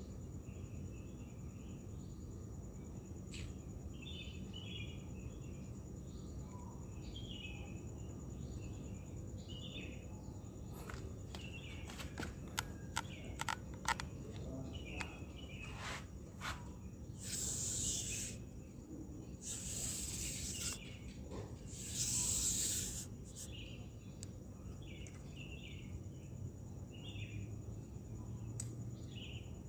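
Steady background noise with insects chirping in a repeating pattern. About halfway through comes a run of sharp clicks, then three short bursts of rushing noise.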